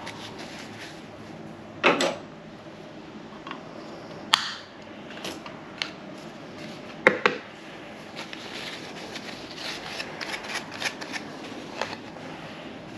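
Handling noises: paper towel rustling and small containers being picked up and set down. There are three sharp knocks, about two, four and seven seconds in, then a run of light clicks and taps.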